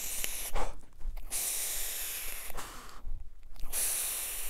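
Airy hiss of drags pulled through an Oumier Wasp Nano rebuildable dripping atomizer on a vape mod, and breathing: a long draw starting about a second in, and a shorter hissing breath near the end.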